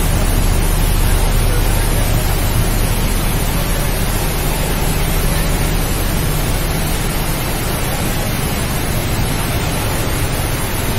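Kraft paper machine running: a loud, steady machinery noise with a low hum underneath, easing slightly after the first couple of seconds.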